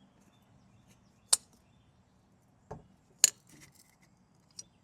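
A bird feeder being handled and closed: four sharp clicks and knocks, the loudest about three seconds in.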